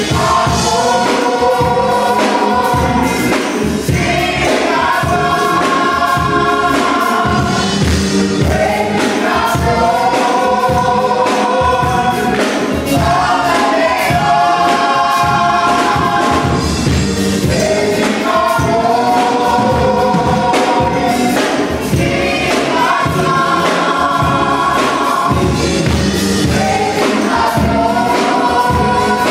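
Gospel choir of men's and women's voices singing in harmony at microphones, in phrases a few seconds long over a steady beat.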